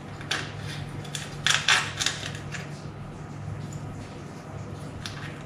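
Small metal terminal hardware (a nut and lock washer) clicking and clinking in the fingers and against the heating-element plate, a few light clicks with the loudest pair about a second and a half in. A steady low hum runs underneath.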